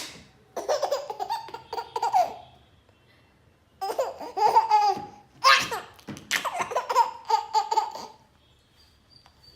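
Baby laughing in rounds of repeated giggles. About halfway through, a short sharp adult sneeze sets off another round of laughter.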